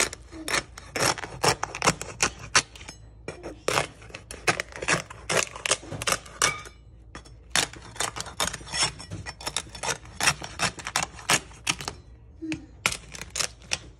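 Crisp skin of a whole roasted pig (lechon) crackling and crunching under a knife as it is scored, a quick irregular run of sharp cracks, several a second, broken by a few brief pauses.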